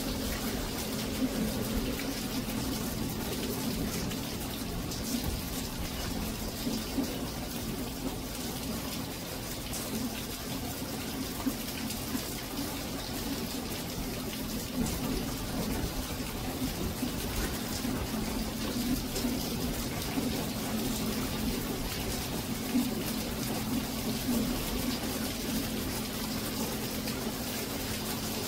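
Steady monsoon rain falling and water splashing, with frequent brief louder drip hits scattered through it.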